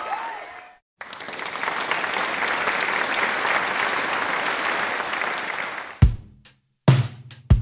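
Crowd applause lasting about five seconds, after the tail of a cheer with whistles fades out. About six seconds in, a drum kit beat starts with hard kick-drum hits.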